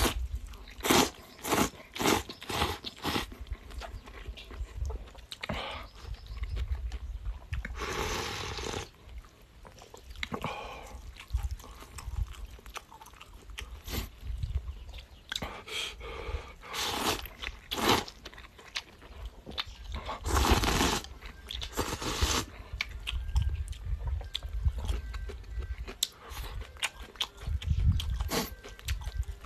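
A person eating a bowl of pickled-cabbage noodles: chewing with many short smacks and clicks, and several slurps about a second long.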